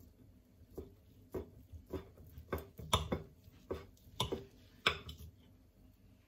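Table knife and fork cutting through a block of Spam on a ceramic plate, the metal clicking and scraping against the plate about twice a second for roughly four seconds.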